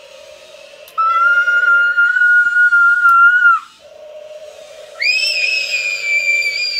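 Remote-control toy T-Rex walking, its small motor and gearbox whirring in stretches. Over the whir come two long, high-pitched, whistle-like shrieks, the second higher than the first and starting about five seconds in.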